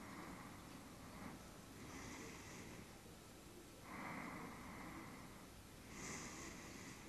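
Slow, heavy breathing through the nose of a man lying asleep, close to the microphone: soft swells of air, a breath about every two seconds.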